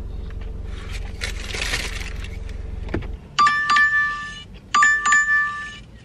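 A phone sounding the DoorDash Dasher app's new-order alert: a bright, ringing double-strike chime that starts about three seconds in and repeats about every 1.3 seconds, the loudest sound here. Before it, a low steady hum that stops just before the chime, and a brief rustle.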